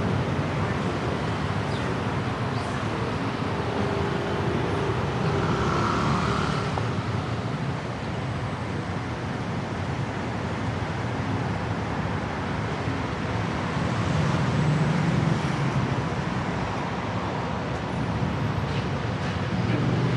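Steady road traffic on a busy multi-lane city road, swelling louder a couple of times as vehicles pass close by.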